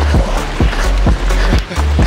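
Background music: a beat with a heavy, sustained bass and quick, regular drum hits.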